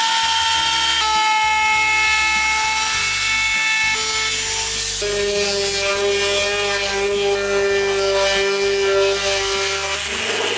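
Electric hand tools working a wooden speaker box: a router trimming the top's edge, then an orbital sander sanding the top, a continuous motor whine over rough rubbing noise. The whine shifts pitch a few times.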